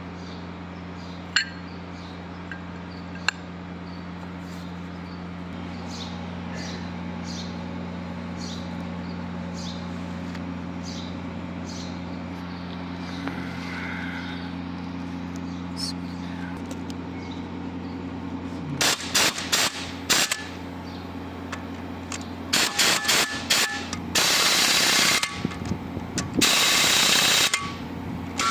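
Steady low machine hum with scattered metallic clicks, then in the last third four loud bursts of about a second each from a power tool.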